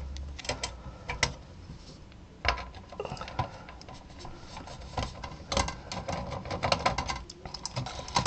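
Irregular clicks and short rattles of hands handling cables and plastic connectors against the metal rear chassis of an opened LCD monitor, with a denser run of clicks past the middle.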